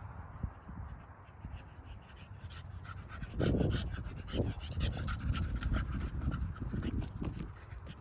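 An animal breathing hard in rhythmic pants, starting about three and a half seconds in, at about two breaths a second.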